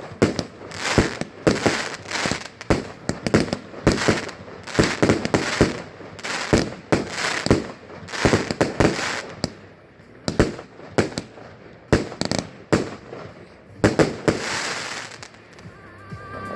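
Fireworks display: aerial shells bursting in quick succession, several a second, thinning out after about ten seconds, with a longer crackling burst near the end.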